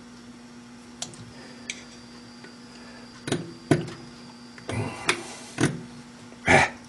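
Clinks, scrapes and knocks of a steel screwdriver prying a vacuum-stuck stainless hot cap off a lathe mandrel against the four-jaw chuck, over a steady mains hum. There is a scrape about five seconds in and a heavier knock near the end.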